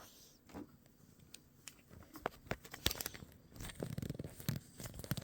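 Faint handling noises: scattered sharp clicks and short rustling, crackling bursts as parts and wiring are handled, busier from about two seconds in.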